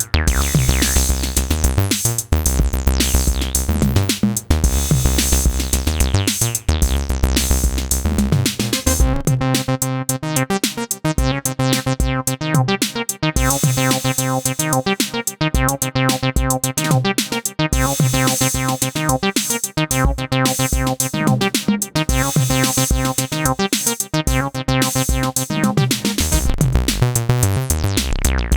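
Elektron groovebox playing a repeating acid bass sequence over a drum-machine beat. The deep kick and sub-bass drop out about nine seconds in while the bass line keeps going, then return near the end.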